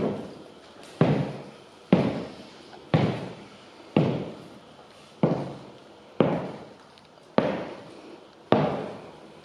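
Stiletto heels of leather over-the-knee boots striking a hard floor in slow steps, about one a second, nine in all. Each heel strike is a sharp click that rings on in an echoey, bare room.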